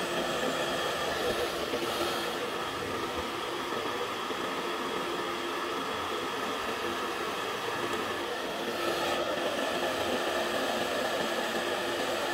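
A hand-held hot-air blower runs steadily, its motor whirring over the rush of air, as it heats a smartphone's glass back panel.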